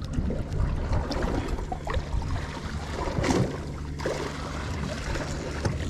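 Steady low motor hum aboard a small fishing boat, with water noise and a few scattered knocks, the loudest about three seconds in.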